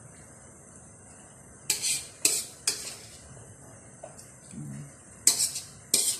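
Metal spoon clinking against metal dishes as sauce is ladled over fish. Five short, sharp clinks: three in quick succession about two seconds in, two more near the end.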